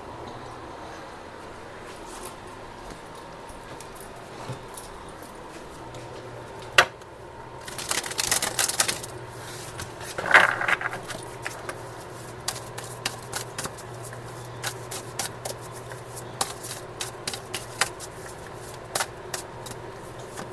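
Tarot cards being shuffled and handled: a string of light clicks and card flicks, with a denser, louder flurry of shuffling between about eight and eleven seconds in.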